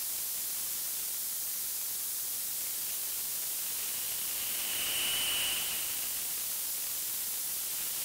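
Synthesized noise hissing through VCV Rack's high-pass filter, a grainy, rattly layer for the snares of a synth snare drum. As the filter's resonance is turned up and back down, a whistling ring at the cutoff swells out of the hiss about halfway through, then fades.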